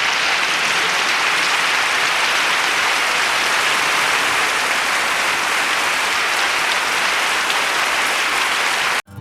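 Dense applause, holding steady throughout, then cutting off abruptly near the end.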